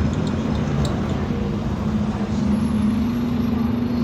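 Scania bus running, a steady low engine hum with a rumbling road noise; the hum strengthens and rises slightly in pitch about two and a half seconds in.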